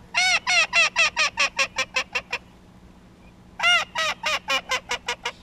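Hand-blown waterfowl call worked in two runs of rapid notes, each starting loud and drawn out, then quickening and fading: calling to birds swinging toward the decoys.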